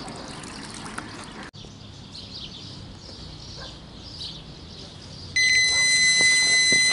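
Electronic carp bite alarm on a rod pod sounding one continuous high beep that starts suddenly about three-quarters of the way in: a fish has taken the bait and is running line. Before it, quiet riverside ambience with faint bird chirps.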